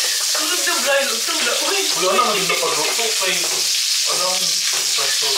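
Cheese hotdogs frying in hot oil in a pan, a steady sizzle.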